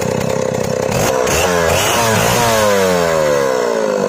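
Newly assembled Stihl two-stroke chainsaw engine on its test run, idling, then revved up about a second in and winding slowly back down to idle.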